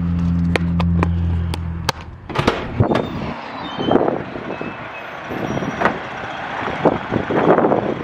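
A low, steady hum and a few sharp clicks as a door is opened and gone through; the hum cuts off about two seconds in. Then footsteps crunch across gravel, about one a second.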